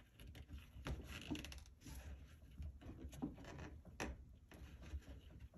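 Faint rustling and light taps of hands pulling twine into a tight knot around a nail head in a wooden board, with a sharper click about four seconds in.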